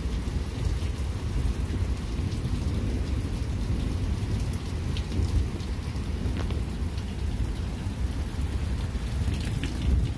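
Heavy rain falling in a thunderstorm over a steady low rumble of thunder, with scattered drips ticking close by.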